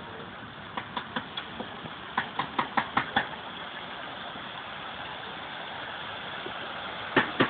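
Steady rush of fountain water. Over it come runs of sharp knocks at about five a second, a short run between one and three seconds in and a steadier one starting near the end.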